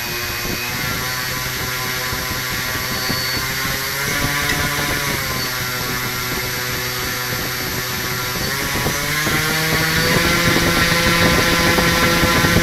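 Quadcopter brushless electric motor spinning a propeller, a steady hum and whine that steps up in pitch about four seconds in and again about nine seconds in as the throttle is raised, getting louder near the end.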